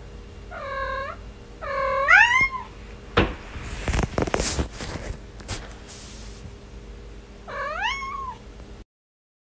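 Cat meowing: several short meows that rise in pitch, two of them close together about two seconds in and one more near the end. In between come a few seconds of scraping and knocking noises. Then the sound cuts off abruptly.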